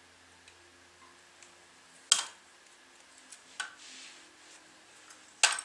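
Sharp clicks and light taps of small plastic and wire parts being handled while wiring an electrical receptacle: three louder clicks, with faint ticks between.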